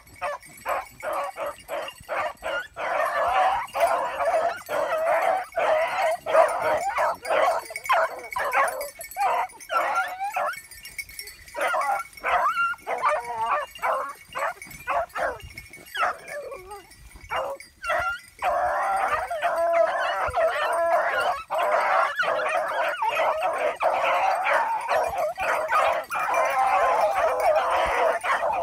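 A pack of scent hounds giving tongue in rapid, overlapping cries as they work a rabbit's line. The cries thin out twice, then merge into a continuous chorus from about two-thirds of the way in.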